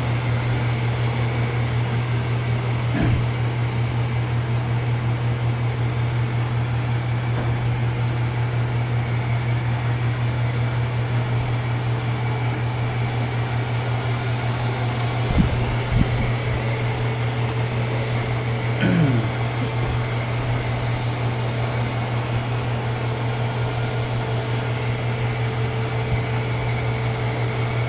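ILIFE X5 robot vacuum running with a steady hum on its max suction setting, with a couple of short knocks about halfway through.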